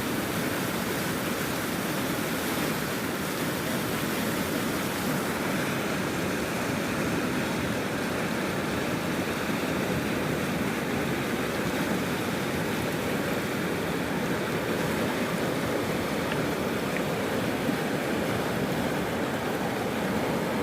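River in flood: fast, high water rushing with a steady, even noise that does not change.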